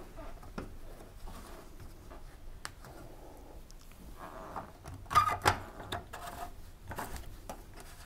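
Washing machine drain pump filter handled and pushed back into its plastic housing: soft rubbing and scraping with a few light clicks, loudest about five seconds in.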